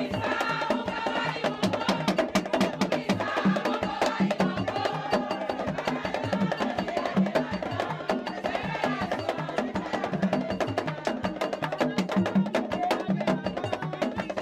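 Vodou ceremonial music: hand drums beating a steady rhythm under a fast run of sharp, hard struck-percussion clicks, with voices singing a chant over them.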